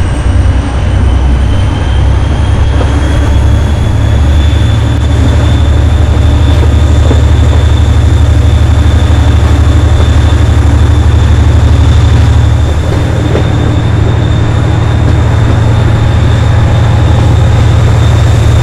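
Class 57 diesel locomotive's GM two-stroke V12 engine working hard under power, a loud deep throb with a high whine that rises in pitch over the first few seconds and then holds steady.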